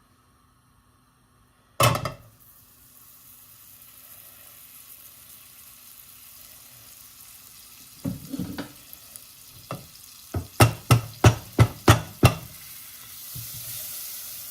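Butter starting to melt and sizzle faintly in a frying pan, the sizzle growing louder near the end. A loud knock comes about two seconds in, a few clatters later, then a quick run of about seven sharp clicks or taps, about three a second.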